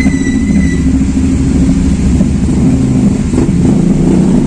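An engine running steadily with a loud, low drone. A thin high tone sounds over the first second.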